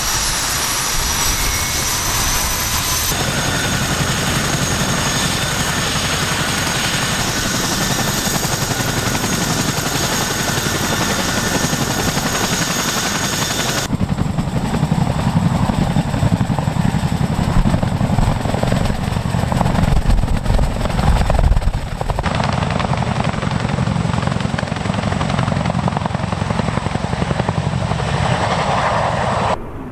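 Boeing CH-47 Chinook tandem-rotor helicopters running with their rotors turning: a loud, steady, rapid rotor chop with thin, high turbine whine over it. The sound changes abruptly a few times.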